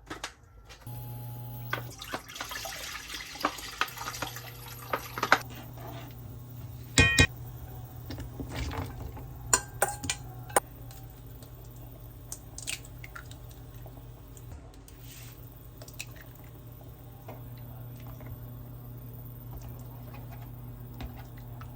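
Water running from a kitchen tap for a few seconds, then scattered clinks and knocks of dishes being handled, over a steady low hum.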